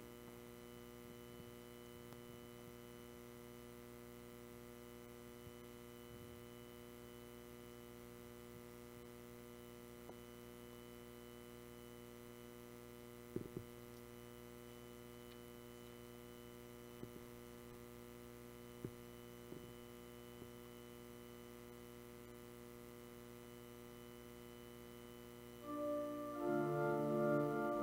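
Faint steady electrical mains hum with a few soft knocks in the middle. Near the end a keyboard instrument starts playing chords, the introduction to a hymn.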